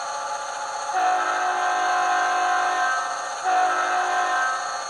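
Sound-decoder diesel air horn played through a model locomotive's small speakers: one long blast of the horn chord starting about a second in, then a second blast starting about three and a half seconds in and still sounding at the end. Under it runs the steady sound of the simulated diesel engine at full throttle.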